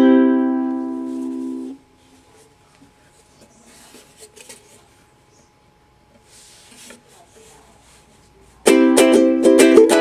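A strummed ukulele chord left to ring and fade, then damped just under two seconds in. Faint small knocks and rustles follow for several seconds, and about a second and a half before the end quick rhythmic strumming starts again on another ukulele.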